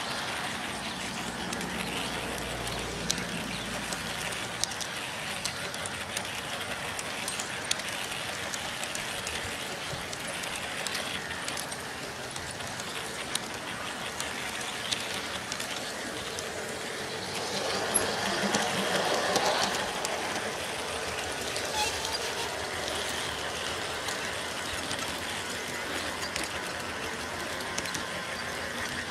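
G scale model train running on track, a steady rolling noise with scattered small clicks, growing louder for a couple of seconds about eighteen seconds in as it passes close.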